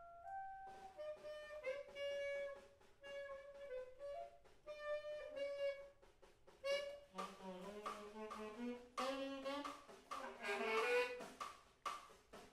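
Live improvised music on a wind instrument playing short, detached notes in a mid register. About seven seconds in, a second, lower part enters with rising phrases and the sound thickens.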